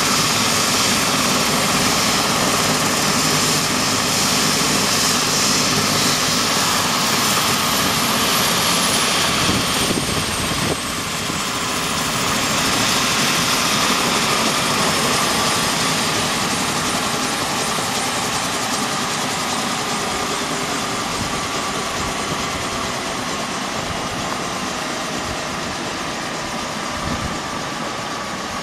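BK 117 rescue helicopter's twin turbine engines and main rotor running on the pad and winding down toward shutdown after landing. A high whine falls in pitch, the level drops suddenly about eleven seconds in, and the sound then keeps fading slowly.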